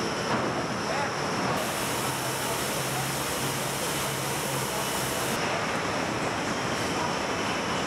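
Steady background noise of a car assembly hall: a constant, even rushing sound with no distinct events.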